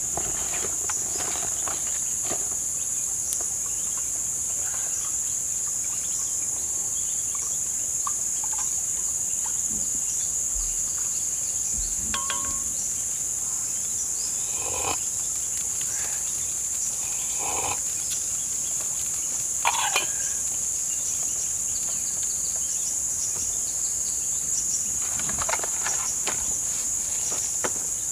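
Steady high-pitched chorus of insects, with a few brief knocks and scrapes scattered through it, the loudest about two-thirds of the way in.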